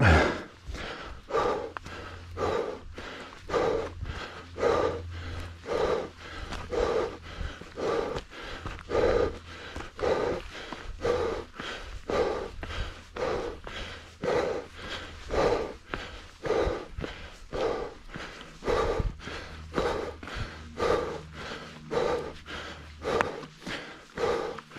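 A hiker breathing hard while climbing, about one loud breath a second, with footsteps scuffing on the dirt and rock of the trail between breaths.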